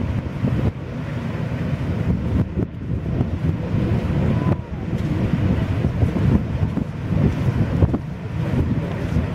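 Wind buffeting the microphone in gusts, over the distant drone of stand-up jet skis running on the sea, their pitch wavering faintly as they throttle up and turn.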